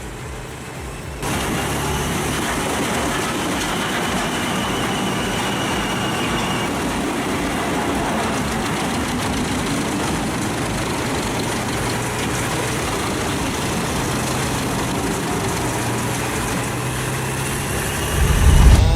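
Heavy diesel machinery running steadily under load, a dense even mechanical noise with a low engine hum underneath. A loud low thump comes near the end.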